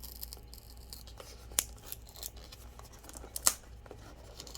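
A small cardboard figure box being opened from the bottom: scraping and rustling of the card with sharp clicks, two of them standing out, one about a second and a half in and a louder one near three and a half seconds.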